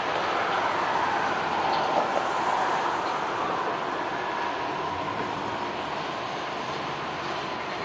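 Freight train of tank cars and covered hoppers rolling past, a steady rumble and clatter of steel wheels on the rails. There is a single sharp click about two seconds in, and the sound eases slightly toward the end.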